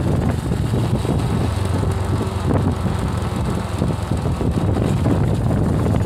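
Wind buffeting the microphone: a loud low rumble that rises and falls in gusts.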